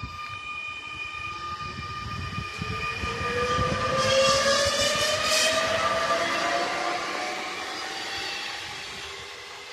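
SNCF Z 23500 (TER 2N) double-deck electric multiple unit passing close by. Its traction motors whine in a tone that rises steadily in pitch as it picks up speed, over wheel-and-rail noise that is loudest about four to five seconds in, then fades.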